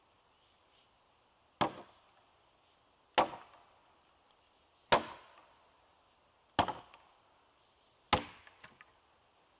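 Axe chopping into a wooden pole lying on the ground: five sharp strikes, about one every second and a half, each with a short woody ring-out.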